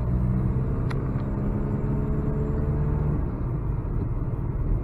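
A diesel car's engine and tyre-road noise heard from inside the cabin while driving at steady speed, a low hum whose engine note drifts slightly in pitch. A brief click about a second in.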